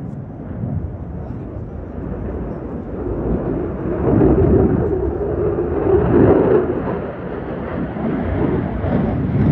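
F-22 Raptor's twin jet engines giving a deep, rumbling jet roar as the fighter maneuvers over the airfield. It swells about four seconds in to a droning peak around six seconds, eases briefly, then builds again near the end.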